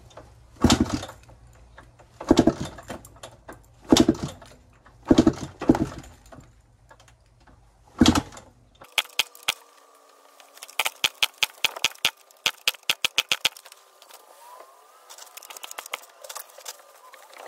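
KTM two-stroke dirt bike being kick-started: about six hard kicks over the first eight seconds, each turning the engine over briefly without it catching, a no-start after a carburettor float adjustment. A run of quick light clicks follows.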